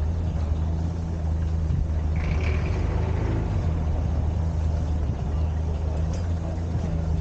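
A heavy engine idling steadily with a low hum. Its note shifts briefly about two to three seconds in.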